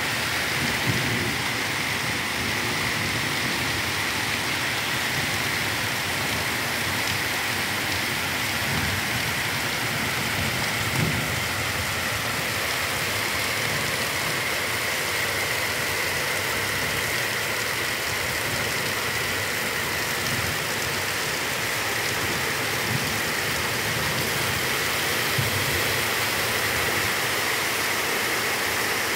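Heavy downpour: rain pouring down steadily in a dense, even hiss.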